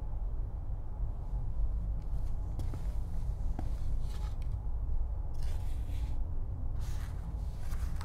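About five brief, soft rustles of belongings being handled and packed, over a low steady hum.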